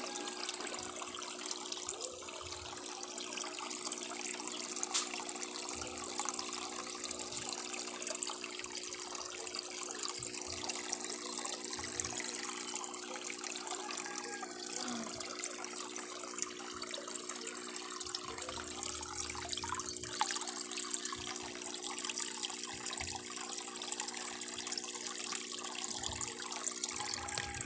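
Aquarium water bubbling and trickling steadily, stirred by aeration, over a low steady hum.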